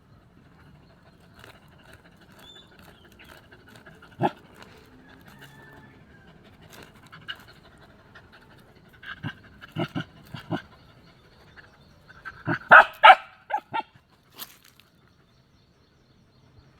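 A dog barking in short, separate barks: one about four seconds in, a few more around ten seconds, and the loudest quick run around thirteen seconds.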